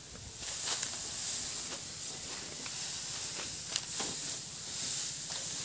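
Dry straw rustling steadily, with a few sharp crackles, as it is handled and loaded onto a pickup truck.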